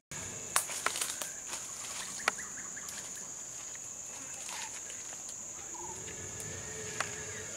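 Outdoor wild ambience: a steady, high-pitched drone that is typical of cicadas or other insects, with a few sharp clicks. About halfway through come faint, short bird calls, with a faint held call near the end.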